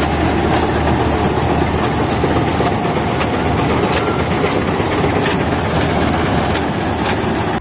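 Rice combine harvester running, a loud steady mechanical rumble with scattered clicks and rattles from the machinery.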